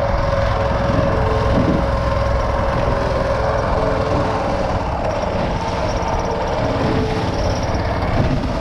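Boat engine running steadily, a continuous low drone.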